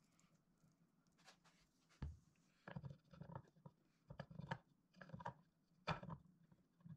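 Glued hardwood strips for an end-grain cutting board being set down and knocked against each other, a run of short wooden knocks and clatters starting about two seconds in. Before that, only the faint rolling of a glue roller bottle over the wood.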